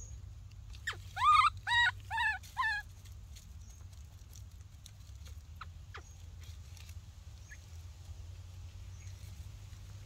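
An animal gives four short, pitched calls in quick succession about a second in, the first rising in pitch. Faint scattered clicks follow over a low steady hum.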